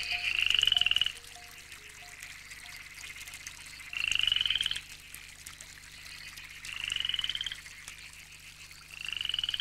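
Frog calling: four pulsed trills, each about a second long and rising slightly in pitch, coming roughly every two and a half to three seconds.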